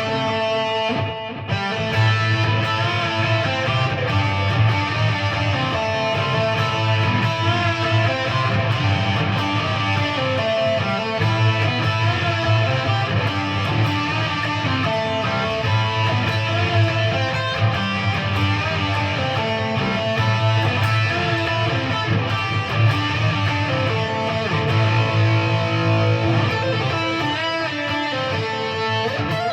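PRS SE Hollowbody II electric guitar playing a riff through a Peavey Vypyr modelling amp on its 6505 high-gain setting, with the flanger switched off. There is a brief break in the playing about a second in.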